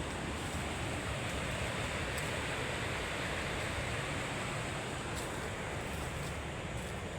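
Waterfall on a forest river rushing steadily, an even roar of falling water.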